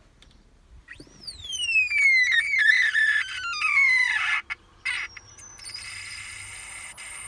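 Odd screech from a 1999 Toyota HiAce diesel before it is started. It comes on about a second in with a sharp upward squeal, then glides down in pitch in steps over about three seconds. After a brief break it settles into a steady high whine.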